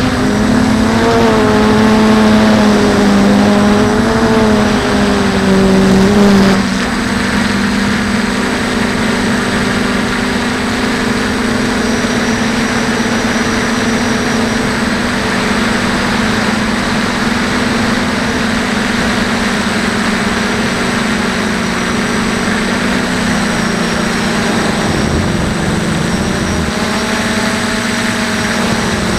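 DJI F450 quadcopter's four electric motors and propellers whining steadily, heard from the onboard camera, their pitch wavering with throttle changes. The sound drops a little and evens out about six seconds in.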